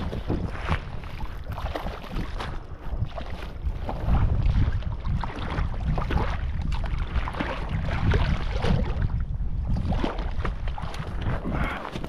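Wind rumbling and buffeting on the microphone in gusts, over a rush of water.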